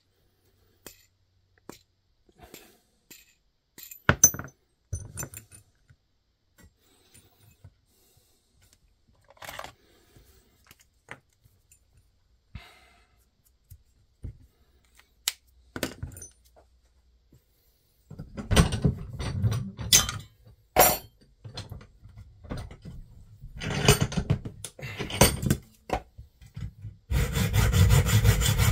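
Small metal parts (bolts and washers) clinking and knocking as they are handled and set down on a work mat, busier and louder in the later part. Near the end a hacksaw starts cutting through a bolt with quick, even strokes.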